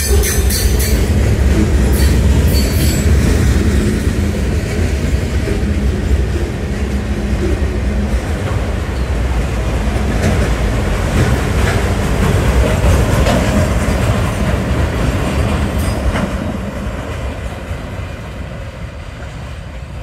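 Freight train of autorack cars rolling past, a steady rumble of steel wheels on the rails with a few brief high screeches in the first seconds. It fades over the last few seconds.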